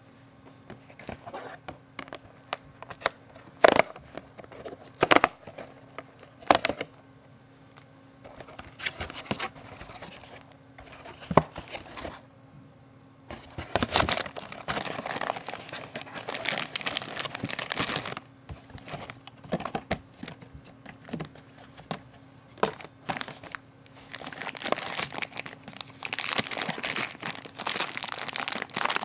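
A small cardboard toy box being handled and opened, with a few sharp knocks and taps. About halfway through, a clear plastic bag of toy model parts starts crinkling and rustling as it is pulled out and handled, and the crinkling keeps on in quick, dense bursts.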